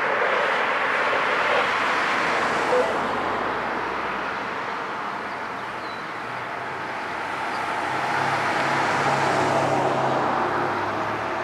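Outdoor road traffic noise: a rushing sound of passing vehicles that swells and fades twice, with a low engine hum through the middle.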